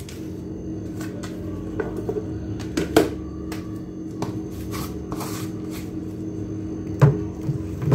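Spice containers being handled over food: a few sharp taps and clicks, the loudest about three seconds in and near the end, and a brief shaking rustle midway, over a low steady hum.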